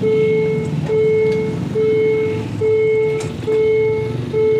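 Railway level-crossing warning alarm sounding: a loud electronic tone repeating a little more than once a second, the signal that a train is approaching. Motorcycle and car engines run underneath as traffic drives over the crossing.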